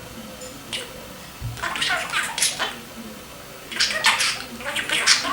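Budgerigar chattering in two runs of scratchy, high warbling bursts, the first about a second and a half in and the second from near the middle on.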